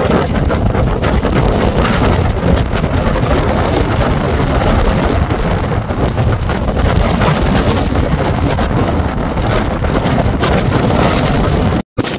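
Wind from a wedge tornado passing close by, a loud, steady rushing noise with heavy wind buffeting on the microphone. It cuts out abruptly near the end.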